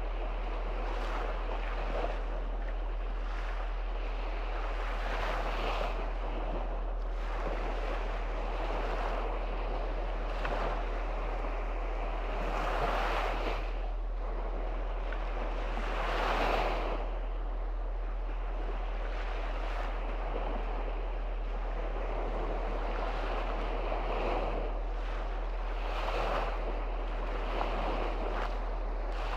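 Small sea waves breaking and washing up on a sandy shore. The surf swells and fades every couple of seconds, and the biggest wash comes about sixteen seconds in. A steady low rumble runs underneath.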